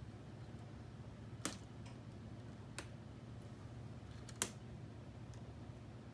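K'nex plastic connectors and rods clicking as pieces are unclipped and handled: three sharp clicks a second or so apart, the last one the loudest and doubled.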